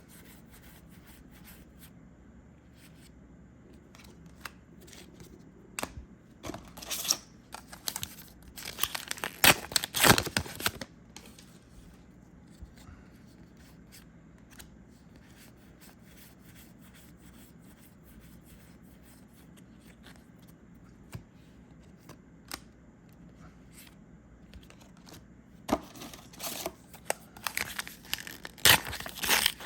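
Star Wars: Unlimited foil booster packs being torn open and their wrappers crinkled, loudest about nine to eleven seconds in and again near the end, with light clicks of cards being handled in between.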